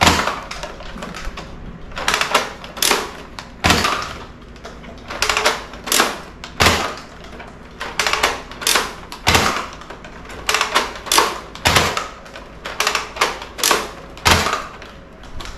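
Rapid, irregular plastic clicks and clacks from a Nerf Flip-32 toy blaster being handled, with a heavier knock every few seconds.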